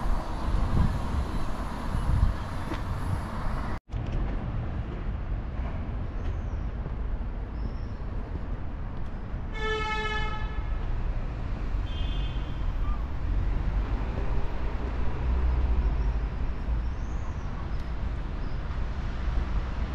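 Steady outdoor city traffic noise with a low rumble, and a vehicle horn toots once, briefly, about ten seconds in.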